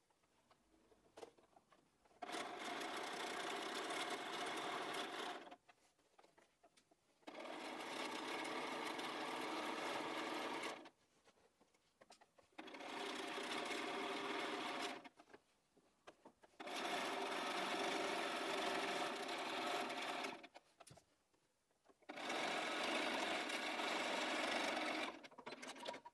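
Bernina 570 QE computerised sewing machine stitching through fabric along a zip with its zipper foot. It sews in five steady runs of about three to four seconds each, stopping briefly between them.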